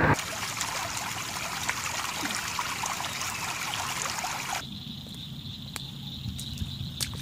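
Running and trickling water, a steady hiss with small splashy ticks. About two-thirds of the way through it cuts to a quieter scene with a thin steady high tone and scattered sharp ticks.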